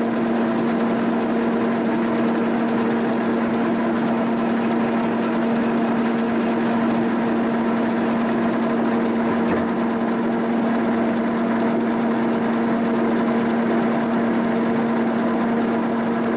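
Milling machine running a boring cut through a steel backhoe boom bore, a steady hum with one constant pitch.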